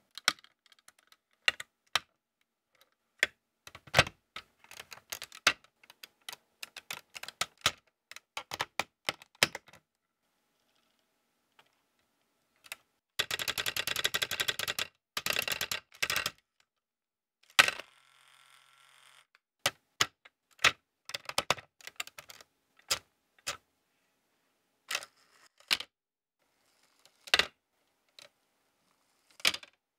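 Lego Technic bricks, beams and pins clicking and snapping together by hand as a model is built: many sharp, separate clicks, with a dense run of rapid rattling clicks about halfway through.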